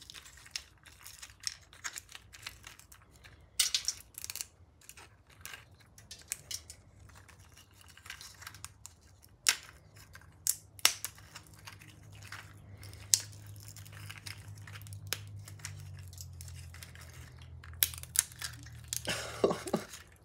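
Plastic clicks and ticks of a 3D-printed articulated bunny's print-in-place joints as its body and legs are bent and twisted by hand, with rubbing and rustling of the plastic segments. A low steady hum sits underneath in the second half.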